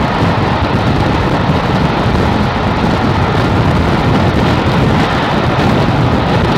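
Loud, steady rushing noise of a train running at speed, with wind buffeting the microphone.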